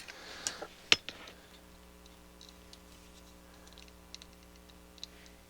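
A few light clicks and ticks of a small 100 nF film capacitor being fitted into a component tester to measure its capacitance and ESR, with one sharp click about a second in. A faint steady hum sits underneath.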